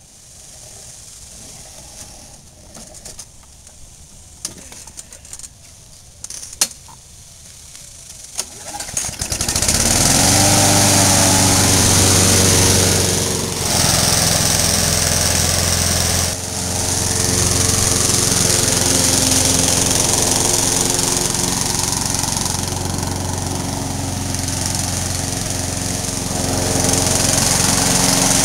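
Gas lawn mower being restarted: a few short knocks, then about nine seconds in the engine catches, revs up and runs steadily. The level dips briefly twice.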